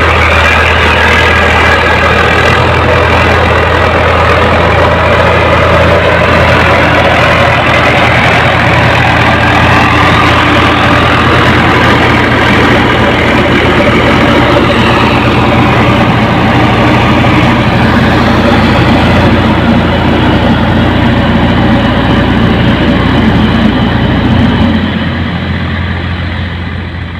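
Diesel engines of a Swaraj 855 tractor and a JCB backhoe loader running hard together as the backhoe's bucket pushes a fully loaded trolley that the tractor is pulling. The steady heavy engine noise drops away near the end.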